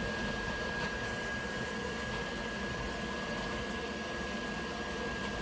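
Elegoo Centauri Carbon 3D printer running mid-print: a steady whir of fans and motion, with a constant thin high tone running through it.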